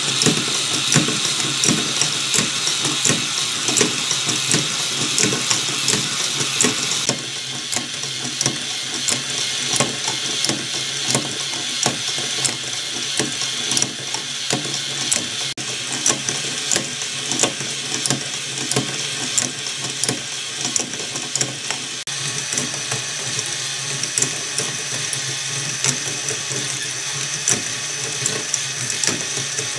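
K'NEX plastic helix lift mechanism running: a dense, continuous clatter of rapid clicks from its plastic gears and moving parts as it lifts balls. The sound shifts abruptly about seven and twenty-two seconds in.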